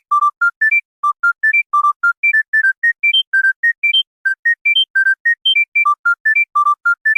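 Old monophonic mobile phone ringtone: a fast melody of single beeping notes, about five or six a second, with a short phrase that repeats.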